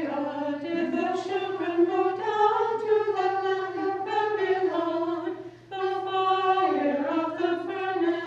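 Orthodox nuns chanting a hymn a cappella, women's voices singing together without instruments, with a short break for breath about five and a half seconds in.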